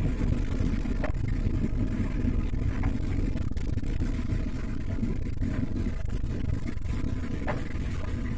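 Steady road and engine noise inside a moving car's cabin, mostly a low rumble, with a few faint clicks.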